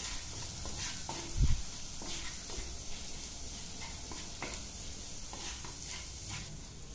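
Minced garlic sizzling in a little hot oil in a non-stick frying pan, stirred with a wooden spatula that scrapes and taps against the pan, with one dull thump about a second and a half in.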